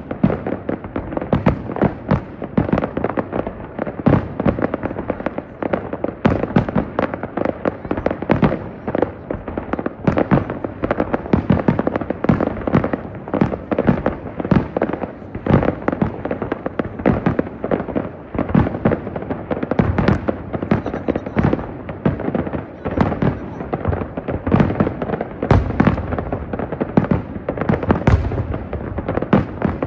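A fireworks display: aerial shells bursting in rapid, dense succession, several bangs a second overlapping into a continuous barrage with crackling between them.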